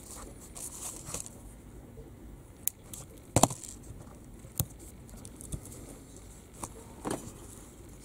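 Hands handling a washing machine water pump motor's coil assembly, its plastic bobbins and metal terminals clicking and tapping together over light rustling. There are several short, sharp clicks, the loudest about three and a half seconds in.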